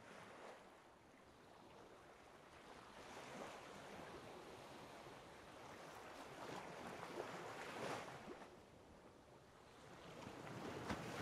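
Faint ocean surf: an even wash of waves that swells and eases every few seconds and grows louder near the end.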